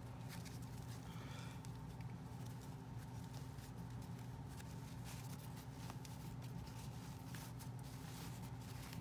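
Faint rustling and soft clicks of a doll's cloth trousers being pulled down off its plastic legs by hand, over a steady low hum.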